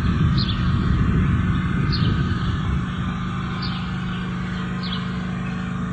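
Steady low rumble with a hum, and a short high chirp that falls in pitch, repeating about every second and a half.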